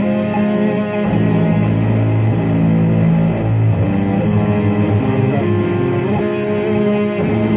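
Electric guitar played through heavy effects in a dark ambient improvisation: slow, held low notes that change pitch every second or so, at a steady loudness.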